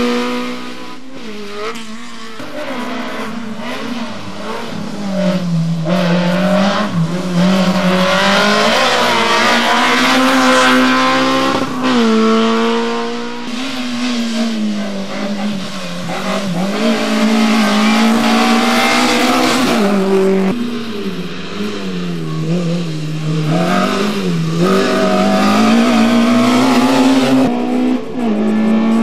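Small hatchback competition cars' engines revving hard and dropping back every second or two as each car brakes and accelerates through a cone slalom, one car after another.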